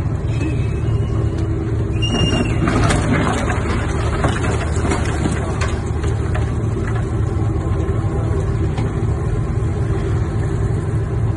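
Low, steady engine drone from a salvage vessel manoeuvring at close quarters. About two seconds in comes a run of cracks and crunches lasting a few seconds as its bow strikes the moored schooner's hull and shoves her against the quay.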